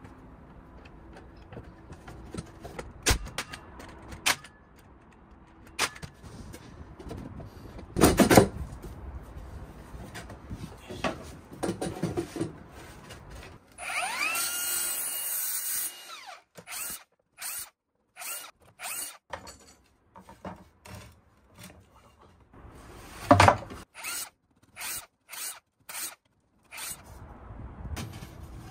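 Wood knocking as boards are handled. About halfway through, a HiKOKI slide miter saw motor spins up with a rising whine and runs for about two seconds through a cut. Then comes a string of short bursts from a cordless power tool driving fasteners, with one loud knock among them.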